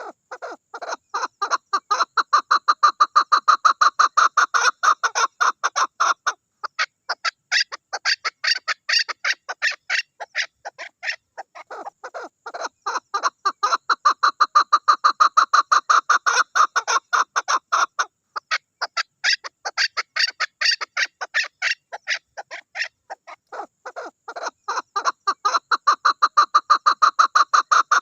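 Chukar partridge calling in long runs of rapid, repeated clucking notes, several a second. The calling comes in about five bouts, each building in loudness and then breaking off briefly before the next begins.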